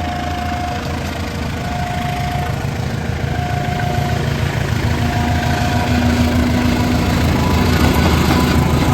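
Diesel locomotive engine running with a steady low rumble that slowly grows louder. A short high beep repeats four times, about every second and a half, over the first six seconds.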